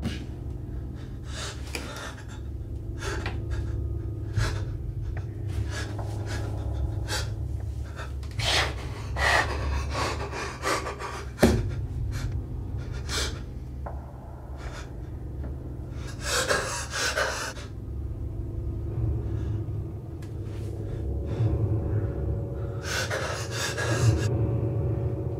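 A young man's heavy, frightened breathing: quick, uneven gasps and pants, with a couple of longer, harder breaths in the second half, over a low steady hum.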